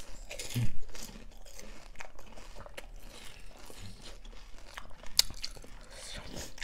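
Crisp panipuri shells crunching as they are bitten and chewed, a run of short sharp cracks with the loudest crunch just over half a second in.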